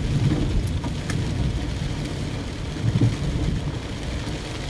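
Inside a moving car in the rain: a steady low rumble of road and engine noise with a faint hiss of rain on the body, and a brief soft thump about three seconds in.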